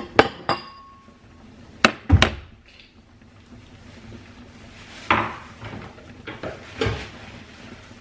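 Kitchen clatter of dishes and cupboards being handled. There are a few sharp knocks and clinks just after the start, one with a short metallic ring. A heavy thud comes about two seconds in, followed by softer rattling and handling noises later on.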